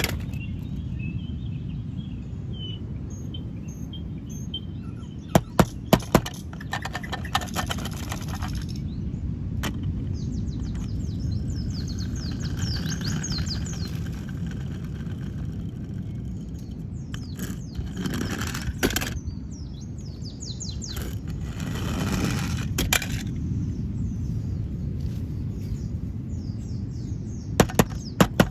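Handling noises: sharp clicks in quick groups of three, about five seconds in and again near the end, and a few bursts of rustling, over a steady low background rumble.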